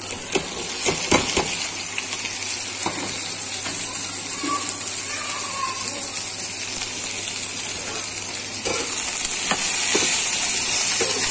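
Chopped okra tipped into hot oil in a steel kadai, with a few clatters as the pieces land, then a steady sizzle as it fries. The sizzle grows louder near the end.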